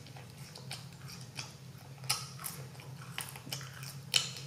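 Close-miked chewing of French fries: a run of short, wet mouth clicks, several a second, with sharper ones about two seconds in and about four seconds in, over a steady low hum.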